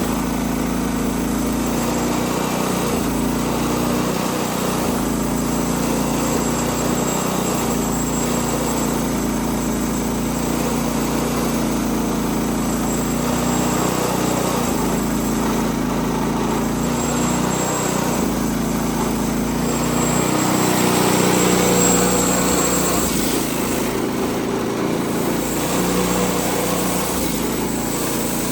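Small gasoline engine running steadily at high speed, with a slight swell in level about two-thirds of the way through.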